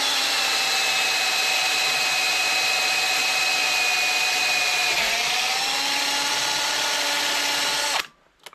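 Electric hand drill running steadily as it bores into unhardened metal at a centre-punch mark, with a steady motor whine. The pitch sags briefly about five seconds in as the bit loads up, then recovers, and the drill stops abruptly near the end.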